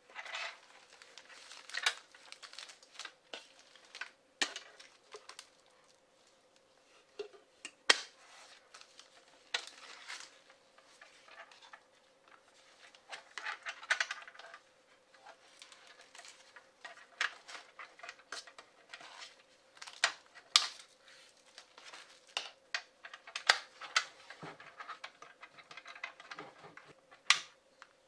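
Hard plastic Doraemon popcorn bucket being handled and turned over by hand: scattered clicks, taps and light knocks of plastic with soft handling rustle between them, over a faint steady hum.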